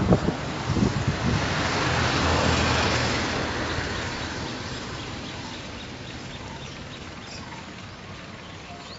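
A vehicle passing by, its rushing road and engine noise dying away over several seconds, with faint bird chirps behind it.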